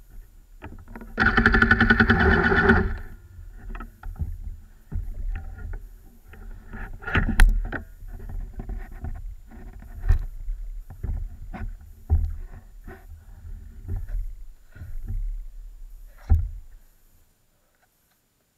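Rotax Max 125cc two-stroke kart engine running with the kart standing still: a loud burst of revs about a second in, then uneven low idling and sputtering that cuts off abruptly about seventeen seconds in.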